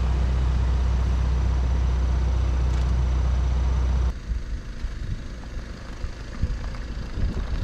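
Minivan engine idling, heard from inside the cabin as a steady low hum. About four seconds in it cuts off abruptly, replaced by uneven wind buffeting on the microphone outdoors as the minivan drives off slowly.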